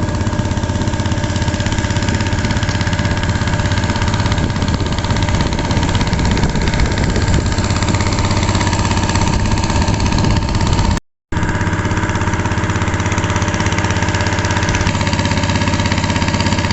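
A small engine running at a steady speed, with no change in pitch. The sound cuts out completely for a moment about eleven seconds in, then resumes unchanged.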